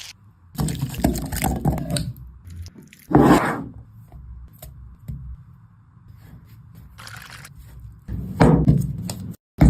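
Cooking on a flat iron tawa: a spatula scraping and stirring wet food, in several irregular bursts with quieter stretches between.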